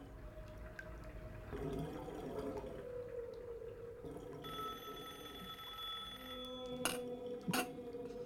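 A telephone rings once, a single ring of about two seconds, over a quiet background of water and a low drawn-out tone. Two sharp clicks follow near the end.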